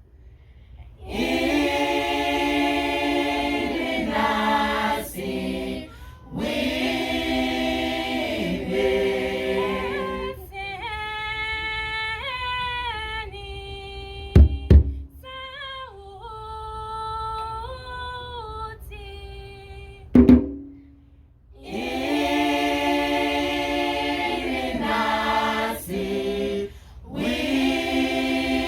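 A choir of voices singing a Swahili gospel song a cappella in harmony. The singing thins to fewer voices in the middle before the full group comes back, and two sharp knocks sound partway through.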